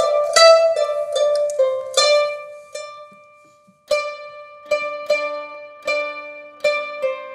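Qanun, the Arabic plucked zither, played solo: a run of quick plucked notes dies away about three seconds in, and after a short pause a new phrase begins.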